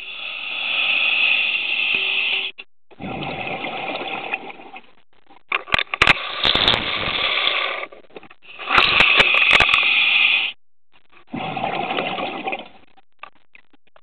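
Scuba diver breathing through a regulator underwater: five rushing bursts of breath and exhaled bubbles, each a second or two long with short pauses between, and a few sharp clicks in the middle.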